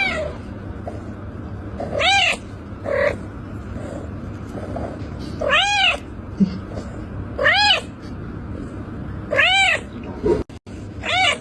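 Domestic cat meowing repeatedly, about six drawn-out meows roughly two seconds apart, each rising and then falling in pitch so that it sounds like 'mama'.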